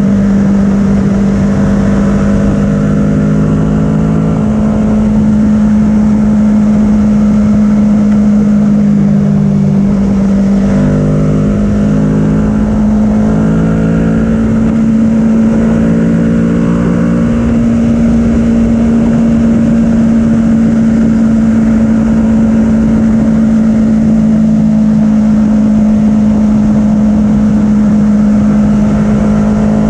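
Kawasaki Ninja 650's parallel-twin engine through an Arrow full-system exhaust, running at a steady high-rev cruise in sixth gear, its note drifting only slightly in pitch. Heavy wind rush on the microphone lies under it.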